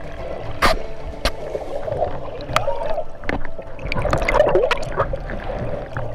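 Muffled underwater water noise, with splashing and bubbling from swimming stirring the water just above the camera. Sharp clicks and knocks are scattered through it, the loudest about two-thirds of a second in.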